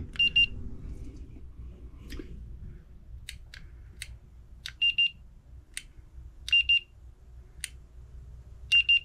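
Handheld infrared thermometer beeping as readings are taken: four sets of short, high beeps, mostly in pairs, with sharp clicks between them.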